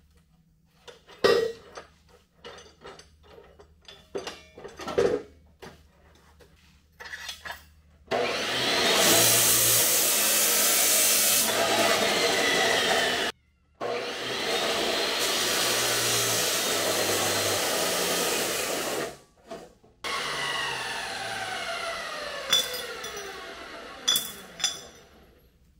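Metal-cutting chop saw cutting steel square tubing. A few knocks and clanks as the piece is set, then the saw runs through three cuts, two long and one shorter, with the blade's whine falling as it coasts down after the last.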